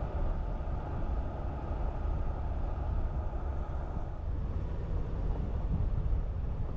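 A van driving slowly over a rough dirt road: steady, uneven road and engine noise.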